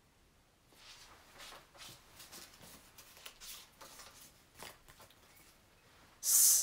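Paper word cards rustled and shuffled between the hands: a string of soft papery crinkles and slides. Near the end the hissing 's' of a spoken word cuts in loudly.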